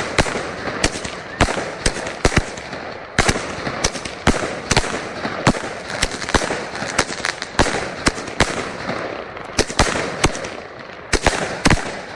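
Fireworks going off continuously: many sharp bangs and crackles at irregular intervals over a steady hiss of more fireworks.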